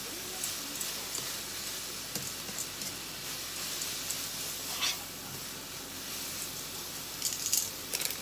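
Rehydrated kogome fern shoots and carrots sizzling steadily in oil in a frying pan as they are stirred with metal tongs, with a light click about five seconds in and a few more near the end.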